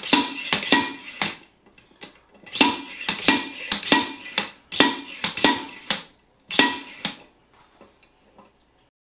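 Steel slide hammer being yanked repeatedly, its weight clanking against the stop with a ringing metallic strike, in quick bursts with short pauses. It is pulling a bearing and seal out of a GM 8.25-inch IFS front differential housing.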